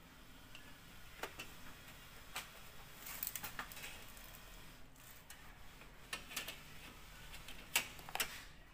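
Irregular light clicks and taps, some in quick little clusters, from hands handling plastic strips against an LCD panel's glass and metal frame.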